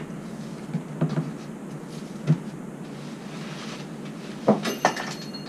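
Cardboard box being opened and foam packing pulled out: a few light knocks and taps on the cardboard, then a louder cluster of thumps and rustling with a brief squeak about four and a half seconds in.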